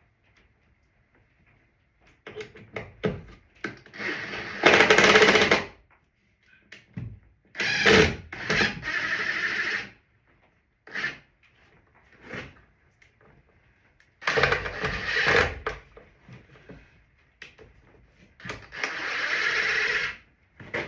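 Power drill driving screws into wood in four short runs of one to two seconds each, with knocks and handling clicks between them.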